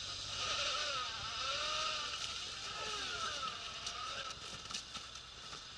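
Suzuki Jimny's small engine revving up and down under load as the 4x4 climbs out of a snowy rut, with a few light knocks near the end.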